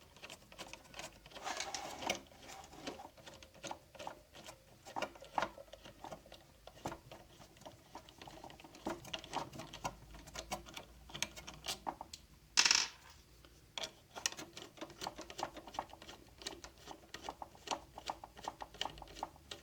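Scattered small clicks, taps and rattles of tools and parts being handled while an espresso machine's boiler is taken apart, with one louder scrape about twelve and a half seconds in.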